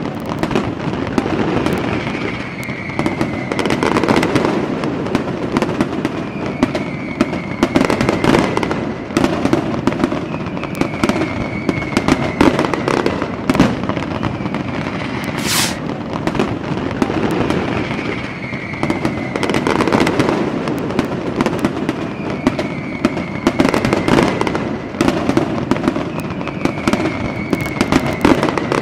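Fireworks going off: ground fountains and aerial shells give a dense, steady crackling peppered with sharp pops. A brief shrill whine comes about halfway through.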